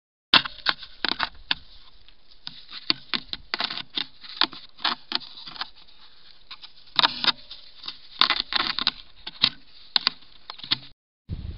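Irregular light taps and clicks, several a second at times and in clusters, picked up through a trail camera's built-in microphone, with a faint steady hiss between them.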